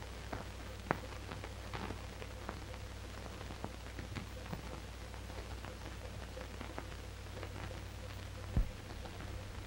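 Quiet stretch of an old film's soundtrack: a steady low hum with faint, irregular crackles and clicks, one sharper click about a second in, and a short low thump near the end.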